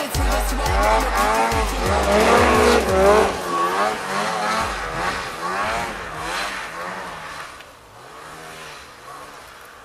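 Mountain snowmobile engine revving up and down again and again, a high wailing pitch that rises and falls every half second or so as it is worked hard. It fades away over the last few seconds. A heavy music bass beat runs under it for the first few seconds.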